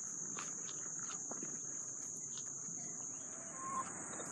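Steady high-pitched chorus of insects, with soft footsteps through grass and a brief chirp near the end.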